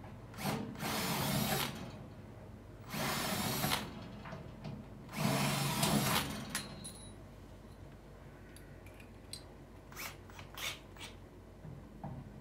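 Cordless drill boring into the smoker's sheet steel for the latch mounting holes, run in three short bursts of about a second each. A few light clicks follow near the end.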